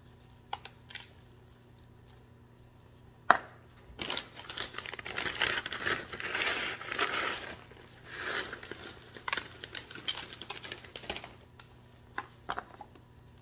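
Plastic bag of French fried onions crinkling as it is handled and shaken out over the casserole pan, loudest from about four to eight seconds in. A single sharp tap comes a little before, and scattered light ticks follow near the end.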